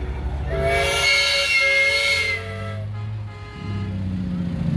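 A semi truck's air horn sounds a multi-note chord in one long blast of about two seconds. After the blast the truck's diesel engine runs low as it rolls past.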